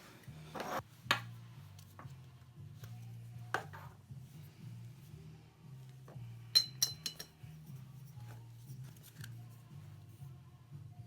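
Small metal clicks and clinks as brass pipe fittings are handled and unscrewed from a plate heat exchanger. The loudest is a ringing clink about six and a half seconds in. Quiet background music plays under it.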